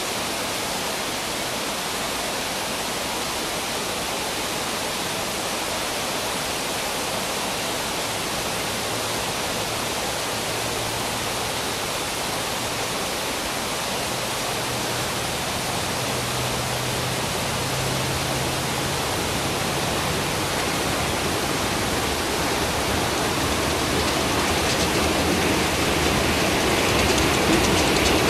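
Steady rushing noise, with the low drone of an approaching freight train's diesel locomotives coming in faintly in the middle and growing louder near the end.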